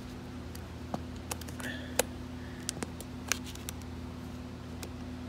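A handful of light clicks and rustles as the shift boot is worked off a manual car's gear shifter, the sharpest about 2 s in, over a steady low hum.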